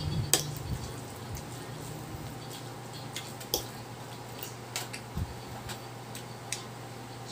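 Eating sounds: a fork clicking against a plate as noodles are twirled and scooped, with chewing, over a low steady hum. The clicks are scattered, the sharpest about a third of a second in.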